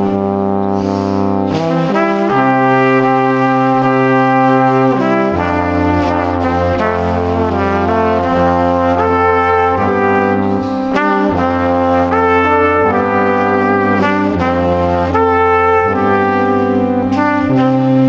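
Instrumental background music of long held chords that change every second or two.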